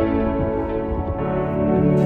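Background music: a slow ambient instrumental with sustained, layered notes.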